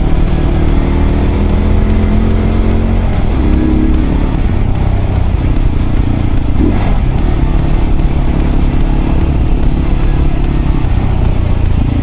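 Mondial RX3i Evo's single-cylinder engine running under way at about 30 km/h, with wind and road noise. The engine note changes about three seconds in and rises briefly near seven seconds.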